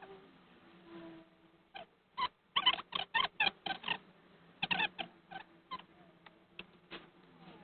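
Irregular short clicks and clacks in quick clusters, as small carburettor parts and tools are handled and set down.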